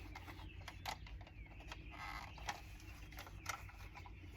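Faint, irregular light clicks and taps of small car-interior parts being handled, a removed screw and its washer among them.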